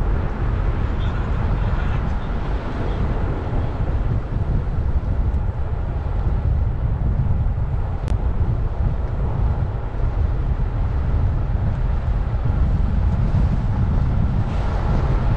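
Steady low rumble of a vehicle on the move, with a single sharp click about eight seconds in.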